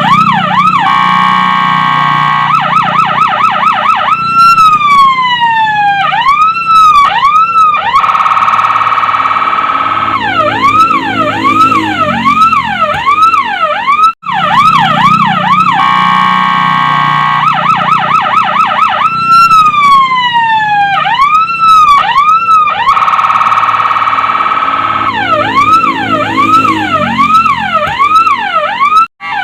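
Multi-tone electronic siren (a 12-tone siren module) on a fire truck, stepping through its tones: quick repeated yelps, a steady warbling tone, a long falling sweep and slower whooping sweeps. The cycle breaks off for a moment about halfway and starts over.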